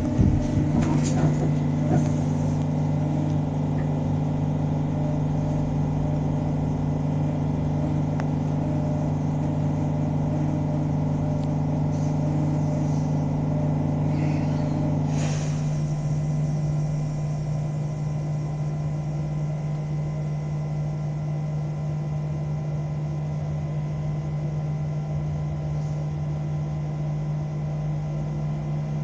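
Electric city bus standing at a stop, humming steadily in several tones from its electrical systems. About halfway through there is a short hiss and part of the hum cuts out, leaving a lower steady hum.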